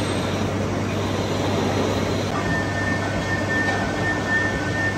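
Heavy lathe turning a large steel roller, the cutting tool working the spinning workpiece: steady machine noise over a constant low hum. A thin, steady high whine comes in a little under halfway.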